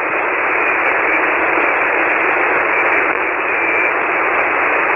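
Steady, loud hiss of shortwave band noise from a ham radio receiver tuned to single sideband on 7.188 MHz, the 40-metre band, with no station transmitting; the hiss is narrowed to the thin, telephone-like range of the receiver's sideband filter.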